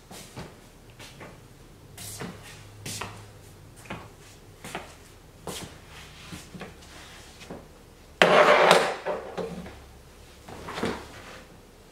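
Footsteps and small knocks as someone moves about a room, then a louder clatter a little after eight seconds and another knock near eleven seconds as a bottle and other objects are handled and set down on a tiled coffee table.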